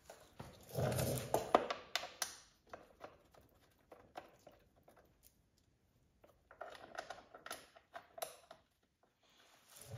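Plastic timing cover being handled and pressed onto the engine: scattered scrapes, taps and light clicks, loudest about a second in and again past the middle.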